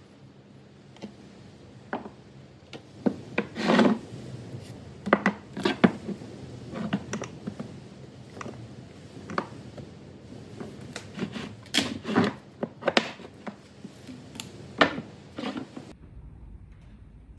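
Metal paint tins being picked up and set down on a wooden workbench: irregular knocks and clinks with some scraping, a dozen or more, stopping near the end.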